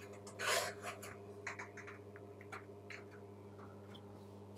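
Transformer buzzbox arc welder humming at idle, a steady low mains hum, with no arc struck. Scattered light clicks and a short rustle about half a second in come from handling.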